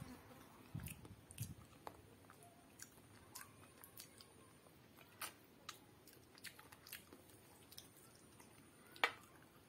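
Close-up mouth sounds of someone eating curry-soaked rice by hand: faint wet chewing and lip smacks with scattered small clicks, and one sharper click near the end.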